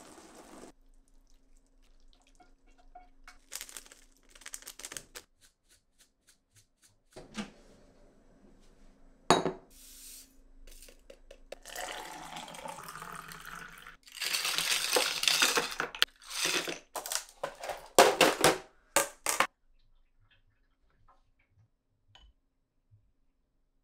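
Dishes and cutlery clinking and knocking in a kitchen, with water running from a tap for a few seconds in the middle.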